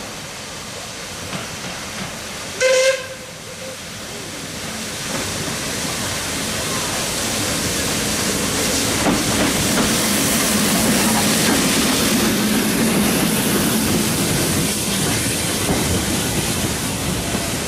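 Small steam tank locomotive gives one short whistle blast about three seconds in, then works past close by, hissing steam, its sound building as it nears and staying loud as it goes by.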